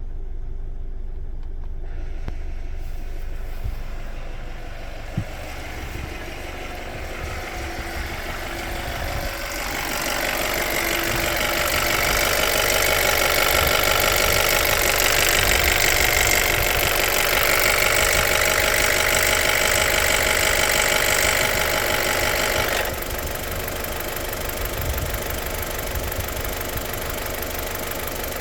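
BMW N45B16A 1.6-litre four-cylinder engine idling. About a third of the way in, a rattle builds up as the intake VANOS test is switched on from diagnostic software, holds for about thirteen seconds, then cuts off suddenly back to plain idle.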